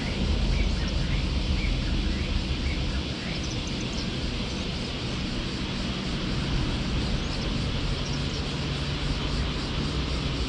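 Steady low rumble and hiss of outdoor background noise, with the hum of a distant engine coming up near the end.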